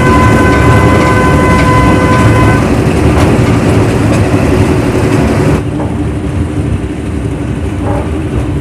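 Park toy train running with a steady, loud rumble. A horn tone is held over it for about the first two and a half seconds. A little past halfway the sound drops to a quieter, duller rumble.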